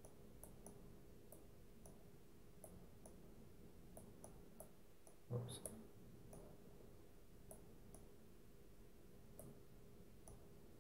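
Faint computer mouse button clicks, scattered and irregular, roughly two a second, with one louder soft thump about halfway through.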